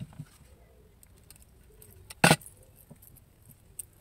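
Small handling noises from fingers working the stripped end of a coaxial antenna cable: a few faint clicks, and one short, sharp clink a little past two seconds in, the loudest sound.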